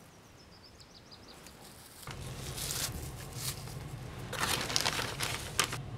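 A quiet stretch with a faint, short, descending bird trill, then, about two seconds in, a steady low hum and fresh salad leaves rustling and crinkling in several short bursts as hands lay them on a plate.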